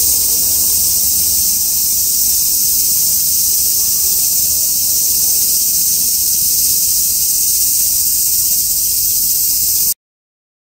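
A steady, dense, high-pitched chorus of cicadas shrilling in summer heat. It cuts off suddenly near the end.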